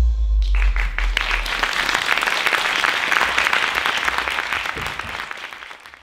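Audience applauding, starting about half a second in as the music's last low note dies away, and fading out near the end.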